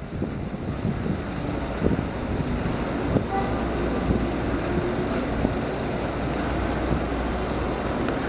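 Steady low vehicle rumble with a few light knocks.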